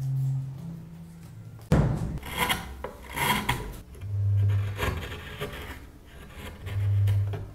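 Hand chisel paring a curved cutout in a pale wood block: a run of rough scraping cuts starting suddenly about two seconds in. A low hum swells twice under the cuts.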